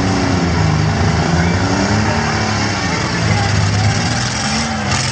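Engines of several small demolition-derby trucks revving and easing off, their pitch rising and falling again and again, over a steady din of the crowd.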